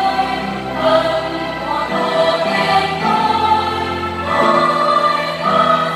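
Mixed church choir singing a Vietnamese hymn in parts, holding chords that change every second or so.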